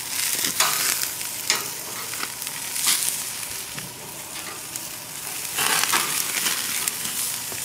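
Vegetables sizzling on a hot grill grate: a steady hiss, broken by several short, louder bursts of crackle and scraping as pieces are turned and moved with metal tongs.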